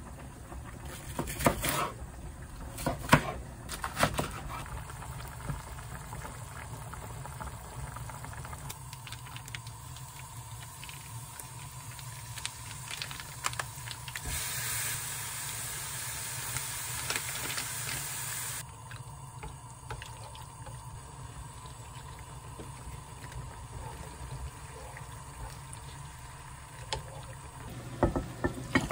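Kitchen cooking sounds over a steady low hum. A kitchen knife chops green onions on a wooden cutting board, a few sharp chops in the first seconds. Midway there is an even sizzle for about four seconds as red-marinated pork for jeyuk-bokkeum goes into the pan, and near the end a ladle knocks as seaweed soup is served into a ceramic bowl.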